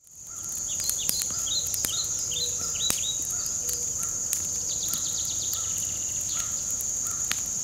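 A small campfire of sticks crackling with scattered sharp pops, over a steady high insect drone and short falling bird chirps repeating about twice a second. The sound fades in at the start.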